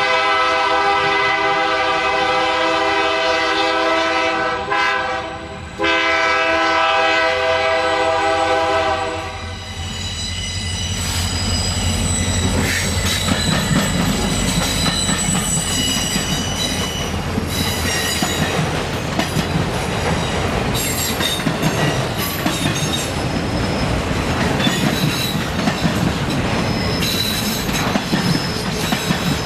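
Union Pacific SD70M diesel locomotive's air horn sounding two long blasts, then the locomotive rumbling past and a long string of auto rack cars rolling by, with wheels squealing on the curve and clacking over rail joints.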